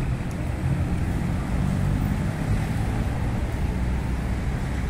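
Steady low rumble of street traffic, cars running and passing.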